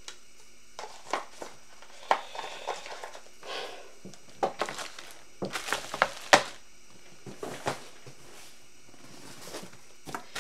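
Packaging being handled during unboxing: rustling and crinkling with scattered knocks and clicks, the sharpest click about six seconds in.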